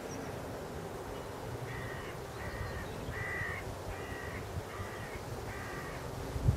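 A bird calling six times in a row, short calls just under a second apart, over steady wind noise on the microphone; a single thump right at the end.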